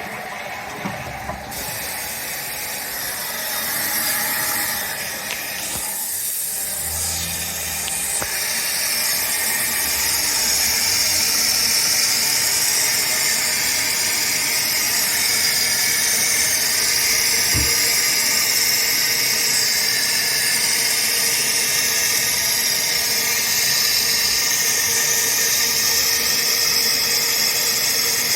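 Kohler Wellworth toilet tank refilling after a flush: the fill valve lets water in with a steady hiss that grows louder over the first several seconds and then holds steady.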